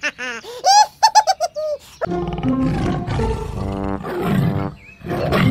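A run of quick, high-pitched cartoon chattering calls, then from about two seconds in an animated leopard's roar over background music.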